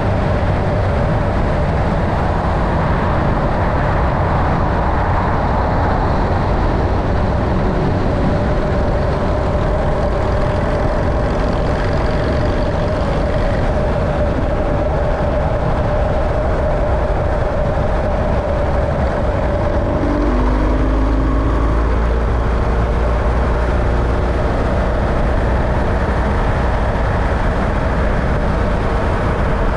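Steady running noise of a road vehicle on the move, with a constant hum; the low rumble grows heavier about two-thirds of the way in.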